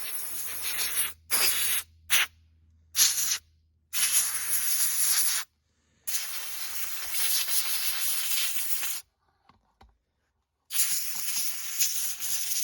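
Compressed-air blow gun hissing in a series of blasts, some brief and some a few seconds long, blowing gunk out of a chainsaw's power head.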